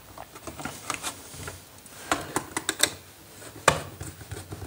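Hands working wires into a plastic switch board: scattered light clicks and taps of wire and fingers on the plastic board and its terminals, with a quick run of clicks about two seconds in and a sharper tap near the end.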